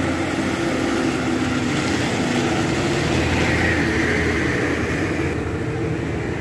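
Passenger bus engine running steadily as the bus drives slowly past close by, a low hum under road noise.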